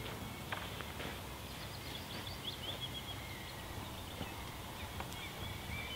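Small birds chirping in short, repeated calls over a steady outdoor background hiss, with a couple of faint clicks about half a second in.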